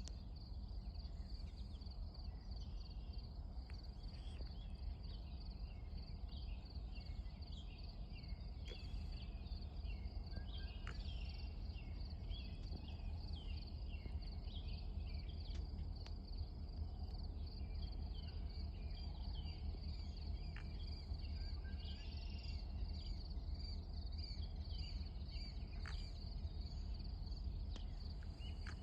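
Evening insects chirping in a steady, fast pulsing trill, with scattered short bird chirps and a steady low rumble underneath.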